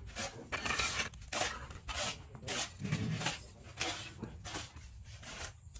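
Steel trowel scraping and tapping against mortar and clay bricks: a string of short scrapes, roughly two a second.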